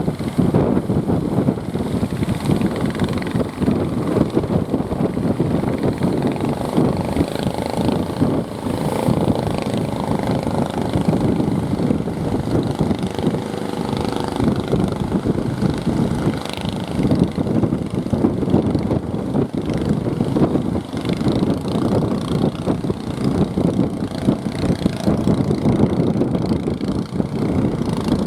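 Fishing boat engine running amid heavy surf and wind noise. The engine's tone stands out most around the middle.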